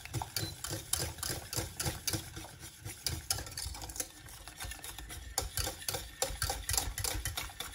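A wire whisk beating thick hot chocolate in a stainless steel saucepan, its wires clicking quickly and unevenly against the pan, several times a second, under a low churning of the liquid.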